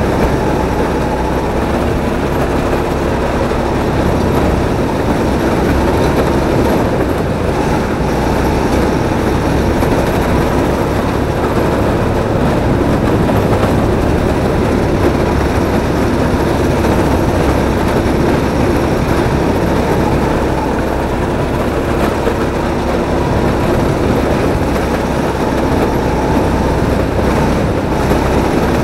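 Onboard sound of a drift kart running: a steady, loud mechanical noise with a faint hum, unbroken throughout.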